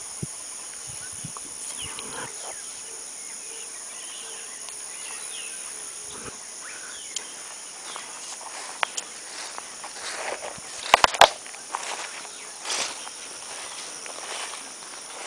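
Footsteps swishing and crunching through grass, irregular and louder in the second half, over a steady high insect chorus in the background.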